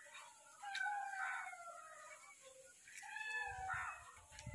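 Faint, drawn-out animal calls, twice, each falling slowly in pitch.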